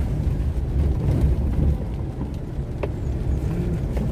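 Car running slowly on a wet paved road, heard from inside the cabin: a steady low rumble of engine and tyres, with a few faint ticks.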